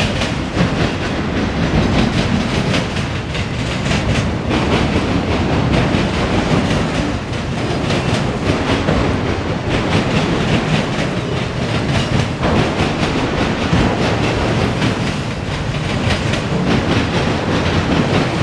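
Freight train's enclosed autorack cars rolling past close by: a steady, loud rumble of steel wheels on rail, with a continual run of wheel clicks over the rail joints.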